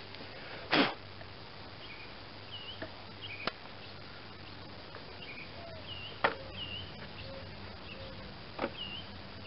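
Quiet outdoor ambience with small birds chirping briefly at intervals. There is a short burst of hissing crackle about a second in, and a few sharp clicks later on.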